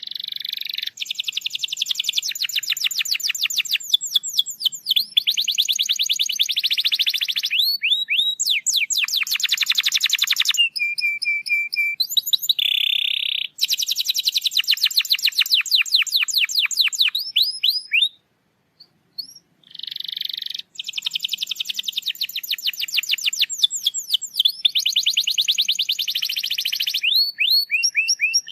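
Domestic canary singing: long rolls of very fast repeated notes, phrase after phrase, with a short pause of about two seconds past the middle.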